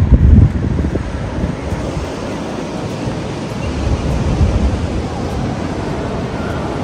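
Ocean surf rushing in the background with wind buffeting the microphone, the heaviest gust coming right at the start and another about four seconds in.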